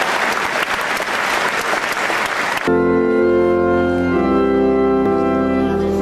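Audience applauding, then an abrupt cut about two and a half seconds in to sustained organ chords that change every second or so.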